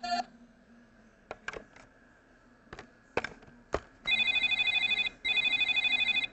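Several plastic clicks as the buttons of a toy beauty salon are pressed. About four seconds in, its built-in electronic cell-phone ringtone starts: a high, warbling trill in rings about a second long with short breaks.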